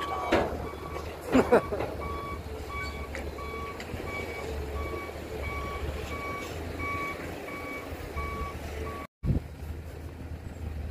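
Heavy construction vehicle's reversing alarm beeping at about one and a half beeps a second over a diesel engine running. Two sharp knocks come in the first second and a half. The beeping stops at a sudden break in the sound near the end.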